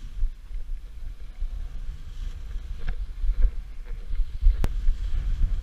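Wind buffeting the microphone of a helmet-mounted camera: an uneven, gusty low rumble, with a sharp click about four and a half seconds in.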